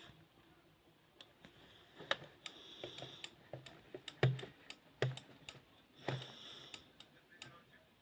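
Buttons and switches on a Hetronic radio remote control being pressed and flicked: irregular clicks and knocks, busiest from about two to seven seconds in.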